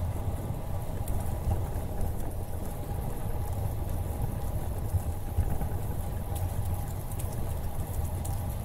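Wind rumbling on the microphone of a camera riding on a moving bicycle, with bicycle tyres rolling on the paved trail and small scattered ticks and rattles.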